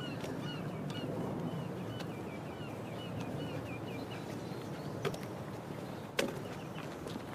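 A flock of birds calling: a rapid run of short, arched calls, about three or four a second, that fades out about three and a half seconds in. A steady outdoor background runs underneath, and two sharp knocks come about a second apart near the end.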